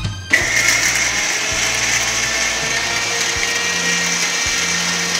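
Electric mixer-grinder (mixie) motor running, grinding cashews and onions into a paste. It starts abruptly just after the start and runs at a steady, high whine.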